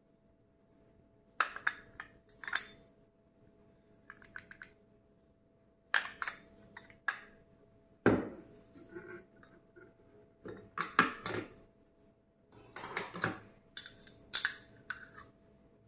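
Small glass cups clinking against a ceramic plate and a steel spoon tapping and scraping inside a glass cup, in scattered short clusters of sharp clinks and clatters, with a faint steady hum underneath.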